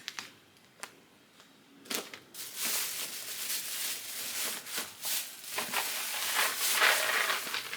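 Packaging crinkling and rustling as it is handled, starting about two seconds in and running on.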